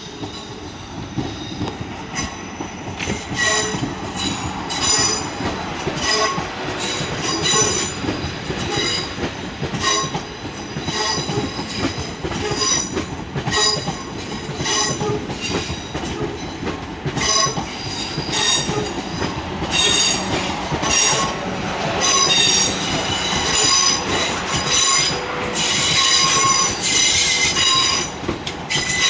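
Class 444 electric multiple unit running into the platform, its wheels squealing in many short, high-pitched screeches over a steady rumble. The squeals come thicker near the end.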